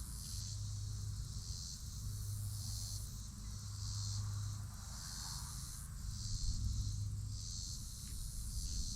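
Chorus of insects trilling in a high, pulsing drone that swells and fades about once a second, over a low steady hum.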